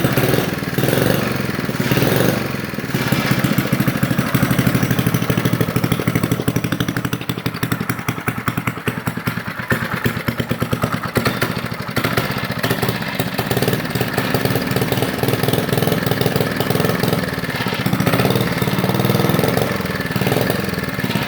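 Small engine of a 1960s Tote Gote-style minibike running steadily with even firing pulses, its loudness swelling a little now and then. It has just started on the second pull after sitting unrun for some 40 years.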